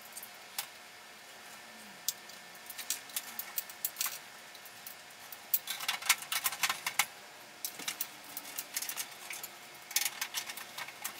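Irregular clicking and rattling of wires and small parts being handled against the sheet-metal housing of a fluorescent light fixture during rewiring. Sparse at first, busier from about halfway through.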